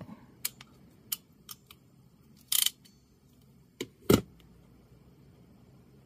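Ratcheting crimper on a DuPont pin: a few sharp ratchet clicks over the first two seconds as the crimp completes and the jaws release, a short rasp about halfway through, then two clicks and a louder knock about four seconds in.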